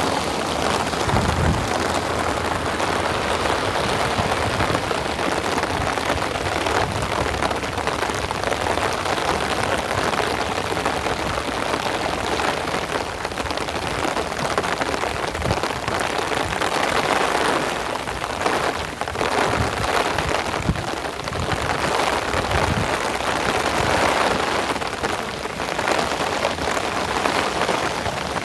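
Steady rain falling, a dense continuous hiss of raindrops that swells and eases slightly at times.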